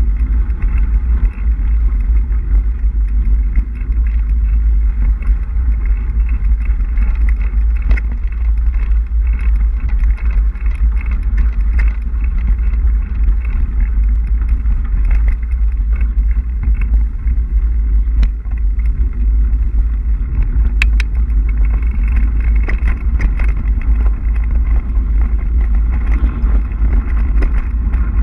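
Wind buffeting the microphone of a camera riding on a mountain bike moving along a dirt trail: a loud, steady low rumble. Over it runs the noise of tyres on dirt, with scattered sharp clicks and rattles from the bike going over bumps.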